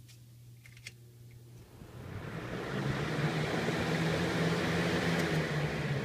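Lasko 20-inch box fan starting up: after a click about a second in, the air rush swells over about a second and then runs steadily with a low motor hum.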